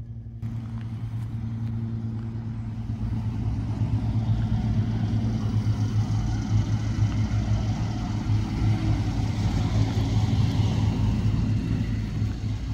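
An engine running steadily with a low hum and rumble that grows gradually louder over the first few seconds, then holds.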